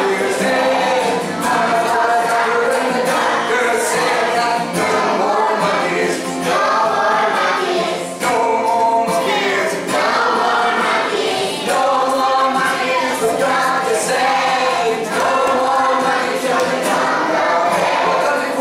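Acoustic guitar strummed steadily as a man sings a children's song, with a room of children singing along.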